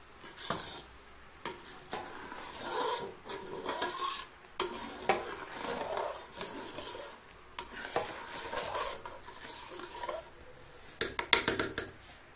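A steel ladle stirring and scraping through steaming grated carrots in an aluminium pot, with irregular metal scrapes and clinks. A quick run of sharp metal clinks near the end is the loudest part.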